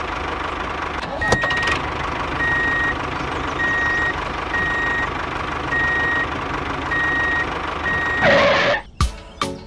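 Vehicle reversing alarm beeping about once a second over a steady engine drone. Near the end a louder short sound breaks in, then the drone cuts off.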